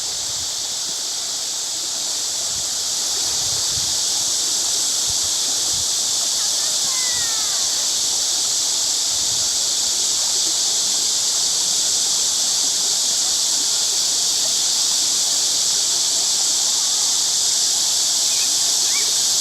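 Stream water flowing, a steady, even rushing hiss, with a few faint bird chirps about seven seconds in and again near the end.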